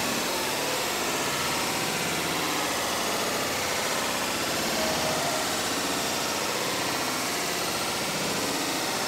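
Waterfall pouring over rocks: a steady, unbroken rush of falling water.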